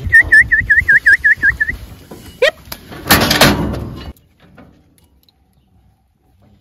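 A bird's quick run of about nine chirps over the first second and a half, over low knocks of cattle and steel in a squeeze chute, then a loud clatter about three seconds in that cuts off suddenly.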